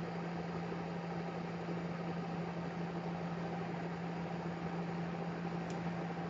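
Steady low hum over a faint even hiss: room tone with no distinct event.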